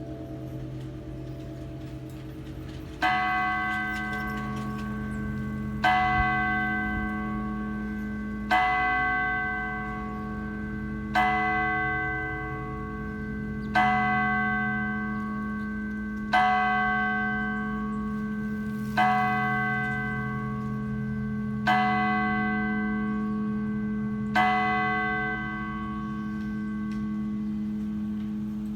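Stanford's large tower chime bell striking the hour: nine even strokes of the same note, about two and a half seconds apart, each ringing on into the next over a lingering low hum. Before the first stroke, the fading ring of higher bell notes from the preceding chime is heard.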